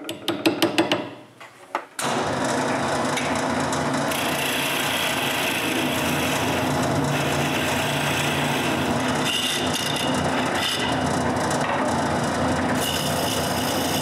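A small hammer taps a walnut plug into a wooden jig block on a wood lathe, about half a dozen quick taps in the first two seconds. Then the lathe runs steadily while a hand-held turning tool cuts the spinning plug into a dome, with a continuous scraping hiss of cutting.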